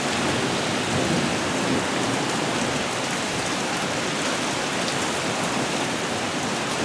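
Heavy rain falling steadily in a thunderstorm, a constant dense hiss of rain on surfaces with occasional faint drips.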